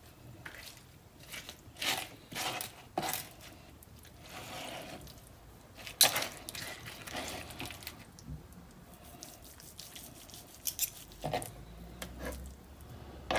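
Metal knife and fork carving a roast chicken on a cutting board: scattered scrapes and taps of the utensils on the board as the meat is pulled from the carcass, with a sharp tap about six seconds in.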